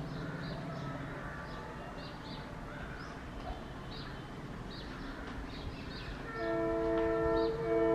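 Horn of an approaching Indian Railways express locomotive: one long blast of a steady multi-tone chord about six seconds in, then a short blast right after. Faint birds chirp and a low rumble run under it before the horn.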